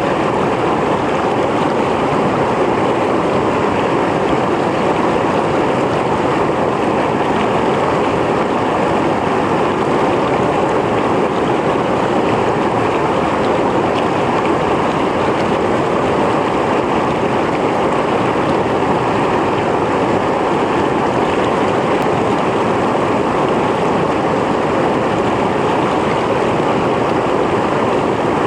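Mountain stream flowing over rocks: a steady, even rush of water that does not change.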